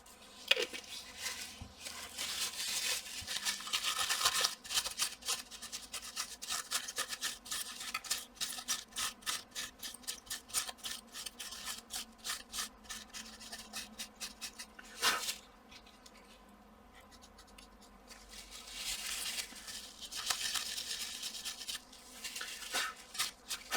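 Quick, repeated back-and-forth rubbing strokes as old thermal paste is wiped off a graphics card's GPU chip with alcohol. About two thirds of the way through there is a sharp click and a short pause, then the rubbing starts again.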